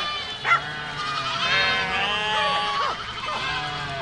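A herd of goats bleating, several calls overlapping and wavering in pitch, with one short sharp call about half a second in.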